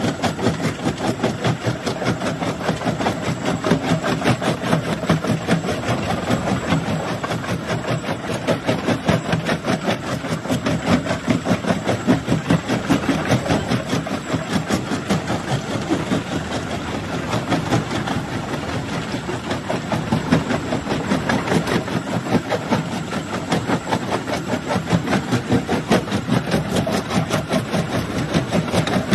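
Jaw-type rock crusher running under load, a steady mechanical drone with a rapid, continuous clatter of stone being broken.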